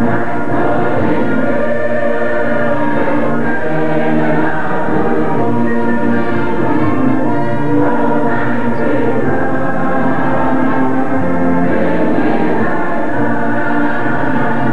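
Male soloist and a large mixed choir singing a slow hymn with orchestral accompaniment, steady and full throughout.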